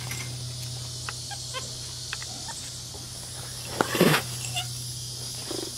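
Tiger chuffing: one short, breathy snort about four seconds in, the friendly greeting sound of a big cat, over a steady low hum and a few faint clicks.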